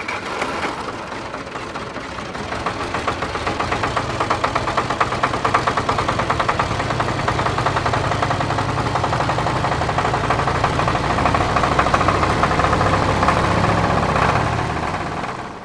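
An engine running steadily with a fast, even knocking pulse. It builds over the first few seconds and fades out at the very end.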